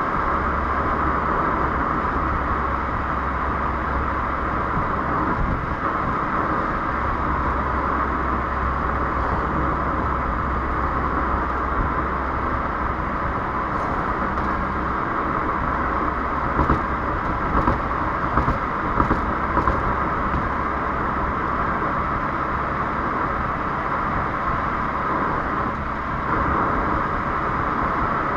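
Renault Clio 1.3 TCe's turbocharged four-cylinder petrol engine and the car running steadily, with no revving, along with a few short sharp ticks a little past the middle.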